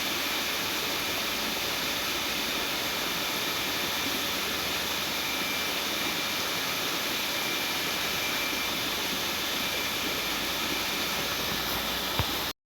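Motorcycle engine running steadily after a choke start, heard as an even rushing noise that cuts off suddenly near the end.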